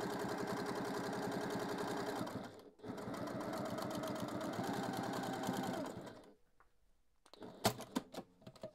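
Domestic sewing machine stitching a seam through folded patchwork fabric at a fast, even stitch rate. It runs in two stretches with a short pause about two and a half seconds in and stops about six seconds in. A few light clicks follow near the end.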